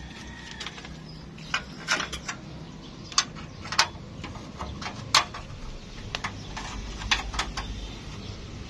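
Sharp knocks and clinks at irregular intervals, about eight of them, the loudest about five seconds in, over a low steady rumble, typical of tools and parts being handled.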